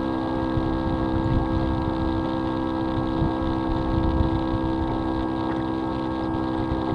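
Radio-controlled model tugboat's motor running at a steady speed, a constant hum of several fixed tones, over an uneven low rumble.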